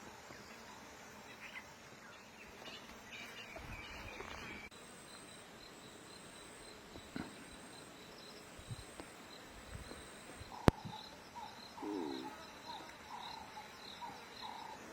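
Bush ambience: insects buzzing and a bird calling in a quick repeated series of notes, with one sharp click about two-thirds of the way through.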